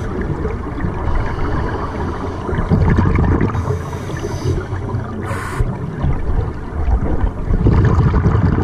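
Scuba regulator breathing heard underwater through a camera housing: a steady rumble of exhaled bubbles, with a hissing inhalation about three and a half seconds in and again near the end.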